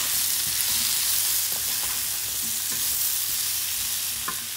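Mixed vegetables sizzling in hot oil in a non-stick pan as they are stirred with a wooden spatula, with light scrapes and taps of the spatula over a steady hiss. The sizzle eases slightly near the end.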